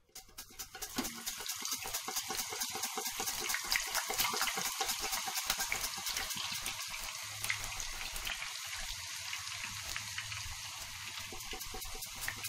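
Hot cooking oil sizzling and crackling as raw potato slices drop into it from a slicer for deep-frying chips. It starts within the first second, builds to its loudest around four seconds in, then carries on as a steady dense crackle.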